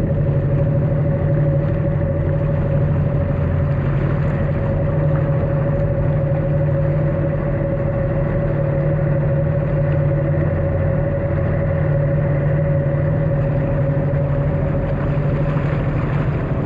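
2021 Yamaha SuperJet stand-up jet ski's three-cylinder four-stroke engine idling steadily at no-wake speed, a constant drone with a steady mid-pitched tone over it.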